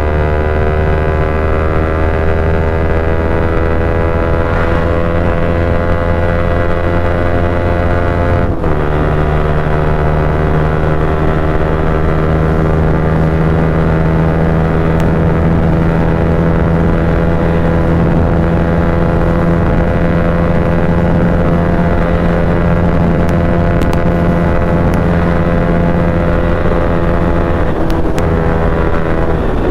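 Bajaj Pulsar NS200's single-cylinder engine running loud through an aftermarket Akrapovic exhaust with the dB killer removed, under hard acceleration at high speed. Its pitch climbs slowly, drops at an upshift about eight and a half seconds in, climbs again, and drops at another shift near the end.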